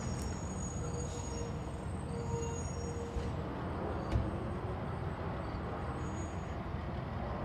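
Water running into an outboard test tank: a steady low rush, with a couple of faint clicks about three and four seconds in.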